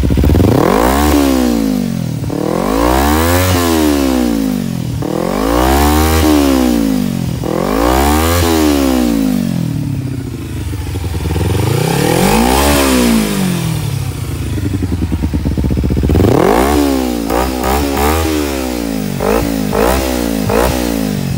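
Kawasaki Ninja 250R's parallel-twin engine through an FMF Apex exhaust, warm, revved from idle in five long rises and falls of pitch. It settles back to idle briefly, then a run of quick, short throttle blips near the end; a loud exhaust note.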